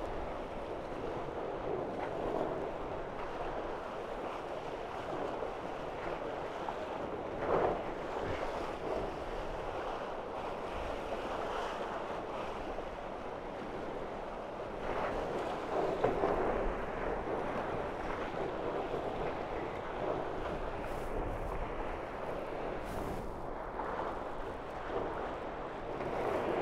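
Water rushing past the hulls of a Tornado racing catamaran under sail, with wind on the microphone; the rush swells briefly about seven and sixteen seconds in.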